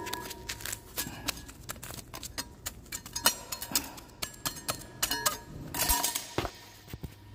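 Steel scraper blade tapping and scraping on a concrete floor as it presses foam backer rod down into an expansion joint: a string of irregular small clicks and clinks, busiest around five to six seconds in.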